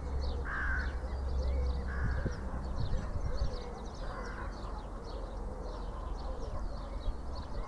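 Birds calling around the railway: three louder calls of about half a second each, crow-like, over continual high chirping from small birds, with a low steady rumble beneath.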